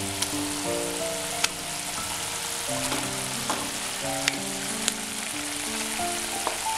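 Ground-coconut mixture simmering in an aluminium kadai with a steady sizzle, while mashed boiled tapioca is scraped in from a glass bowl with a wooden spatula, giving a few sharp taps of spatula on bowl and pan. Soft background music plays underneath.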